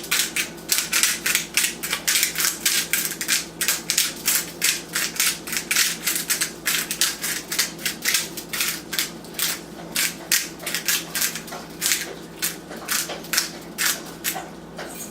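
Hand-turned salt grinder crushing Himalayan pink salt crystals, a steady run of gritty clicks at about three to four a second.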